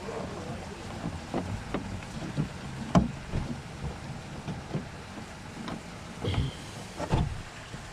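Irregular clicks and knocks of a car door window regulator's parts being handled and worked on, the loudest about three seconds in, over a steady low background noise.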